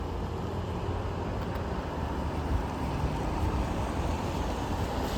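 Road traffic passing through an intersection: a steady rush of car and tyre noise that grows gradually louder toward the end.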